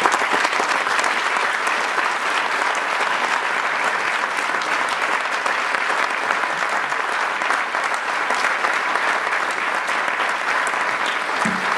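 Audience applauding steadily: a dense clapping of many hands that starts at full strength and holds at an even level.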